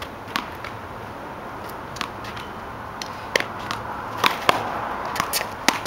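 Sharp smacks of a small rubber handball struck by hand and hitting the concrete wall and court, one-wall handball in play. Single smacks come every second or so, then a quicker cluster in the last two seconds, over a steady background hiss.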